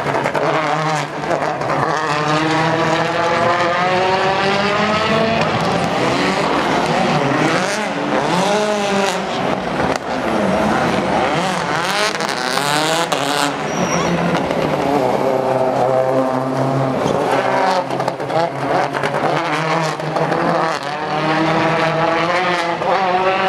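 Turbocharged World Rally Car engines, several cars in turn, revving hard and shifting through the gears, the pitch climbing and dropping over and over. Sharp pops and crackles from anti-lag and backfires cut in between.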